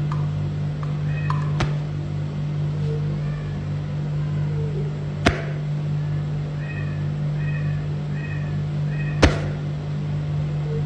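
A steady low electrical hum throughout, with three sharp clicks and, in the second half, a run of faint high chirps about half a second apart.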